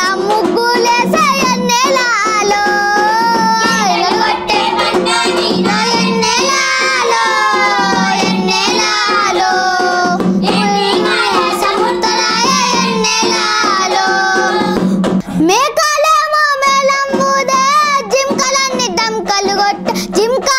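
A boy singing a Telugu folk song, holding long, wavering notes that slide between pitches. About fifteen seconds in he stops briefly, then swoops up into the next phrase.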